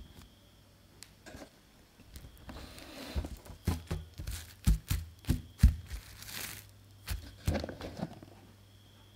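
Plastic cling film crinkling and crackling as it is pulled from its box, torn off and spread over dough balls on a wooden board, with a brief tearing hiss a little past the middle.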